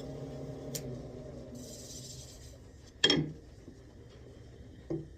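Wood lathe motor humming steadily and dropping away about a second and a half in, then a sharp knock with a short ring about three seconds in and a lighter knock near the end.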